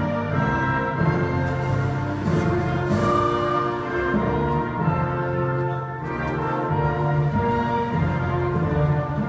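A national anthem playing as an orchestral recording, with sustained chords and brass prominent.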